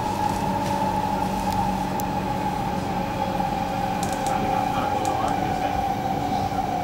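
Interior of a Kawasaki-CSR Sifang C151A electric train car in motion: a steady rumble of the car with the high whine of its IGBT-VVVF traction drive, the whine slowly falling in pitch as the train slows.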